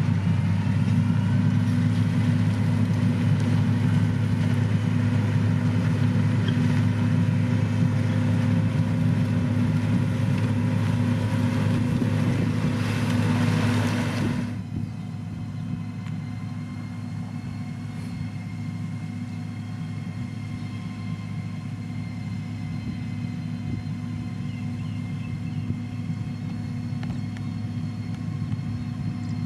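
Heavy road-construction machinery's diesel engine running steadily under work, with a deep, even hum. A little past halfway the sound drops in level and loses its upper hiss, leaving a quieter, duller engine hum.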